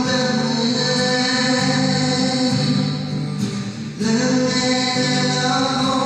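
A man singing with acoustic guitar accompaniment, long held notes with a brief break between phrases about three and a half seconds in.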